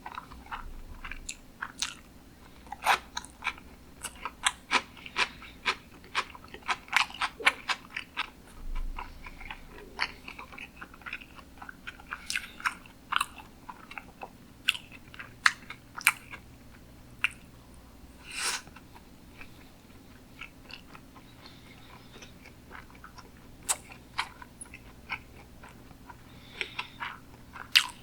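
Close-miked mouth sounds of someone chewing sushi: irregular wet clicks and smacks, quick and dense for the first several seconds, then sparser with a quieter stretch past the middle.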